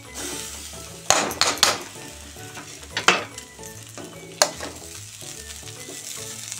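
Soaked poha tipped from a steel bowl into a hot kadai of frying vegetables, with sizzling and a few sharp metal knocks and scrapes of utensils against the pan: a cluster about a second in, another near three seconds and one at about four and a half seconds.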